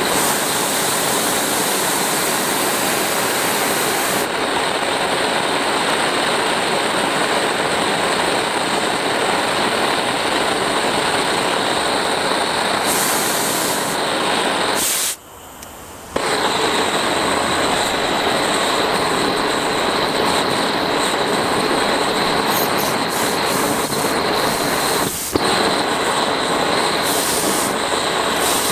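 Blowtorch flame burning with a steady rushing hiss. It cuts out for about a second midway, then runs again, with one sharp click a few seconds before the end.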